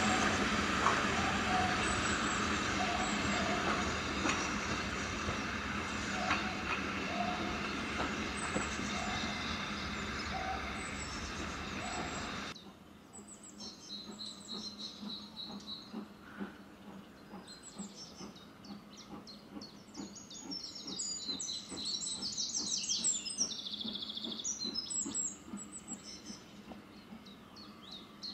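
Steam-hauled passenger train rolling over the rails and away, a loud, steady rumble that slowly fades. About twelve seconds in it cuts off sharply to much quieter birdsong, with many short, high chirps.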